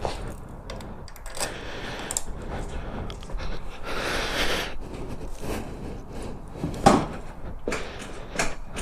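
Handling and rustling noises, with scattered light clicks and one sharper knock about seven seconds in.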